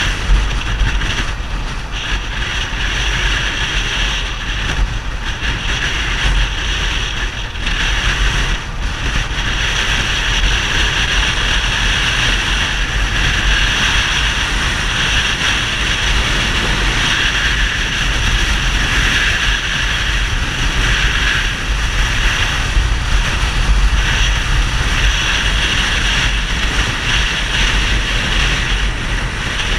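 Yamaha XTZ 250 Ténéré's single-cylinder engine running through a Roncar 2WAY SC401 aftermarket exhaust, dipping briefly twice, with wind noise on the microphone.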